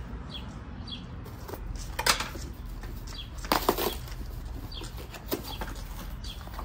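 Cardboard boxes and paper packaging being handled and opened: irregular rustling and scraping of box flaps and wrapping, with louder crinkles about two seconds in and again around the middle.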